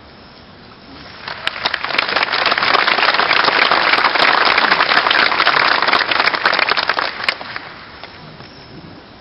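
Audience applauding, a dense clatter of many hands that swells about a second in and dies away near the end.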